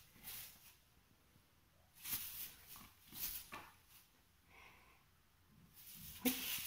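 Siberian kitten scampering and pouncing on a tiled floor after a tinsel wand toy: several brief, soft scuffs and rustles.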